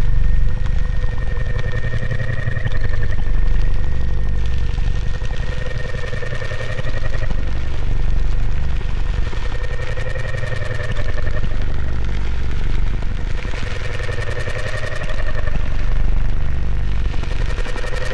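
Experimental drone soundtrack: a dense, pulsing low rumble under two sustained tones, one mid-pitched and one high, that waver slightly in pitch.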